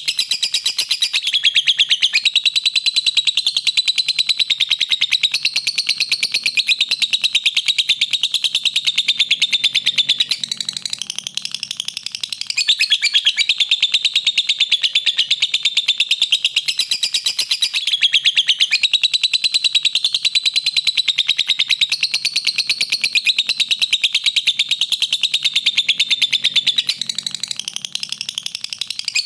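Lovebird singing a long, fast, unbroken chatter of high chirps, the rapid trilling song that lovebird keepers call ngekek. It eases off briefly twice.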